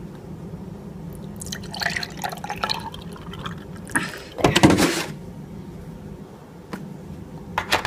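Milk glugging as it is poured from a plastic gallon jug into a glass, with a louder knock about halfway through and a couple of light clicks near the end.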